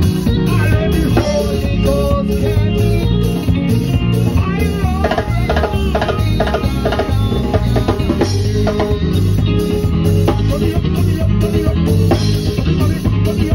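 A live band playing continuously: electric bass guitar and drum kit under keyboard and melody lines, at a loud level.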